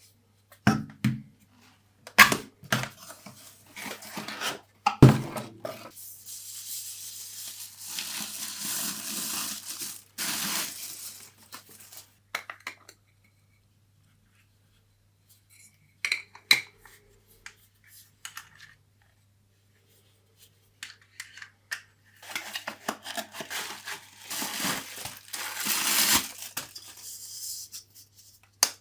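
Packaging of a camera lens being unboxed: a few sharp knocks and clicks as the box and parts are handled, and two long stretches of rustling and tearing of paper or plastic wrapping.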